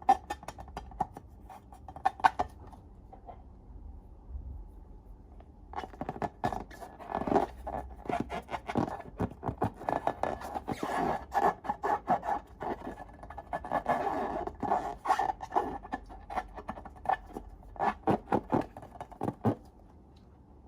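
Slime being mixed and squished, with many quick sticky clicks and scraping. There are a few clicks at first, a quieter stretch, then a dense run of clicking from about six seconds in that stops shortly before the end.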